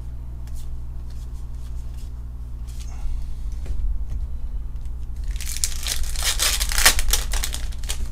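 Foil Pokémon booster pack being torn open and its wrapper crinkled: a loud burst of crackly tearing and rustling from about five seconds in, lasting two seconds or so. Faint card-handling clicks come before it, over a steady low hum.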